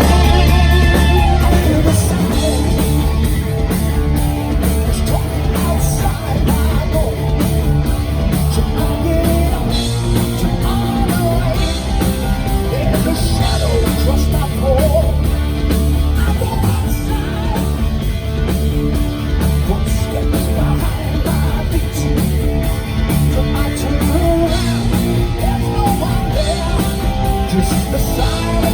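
Hard rock band playing live: a loud, bass-heavy mix of guitar, bass and drums, with some singing.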